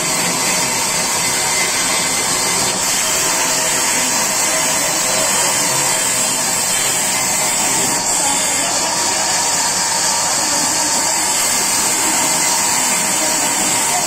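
Sawmill band saw running and ripping timber lengthwise: a steady, loud hiss with a high-pitched edge.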